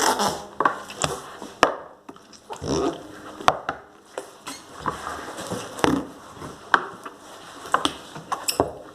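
Slime being squeezed and pressed into a small plastic pot to make fart noises: a series of wet clicks and pops, roughly one a second, with soft squelching between them.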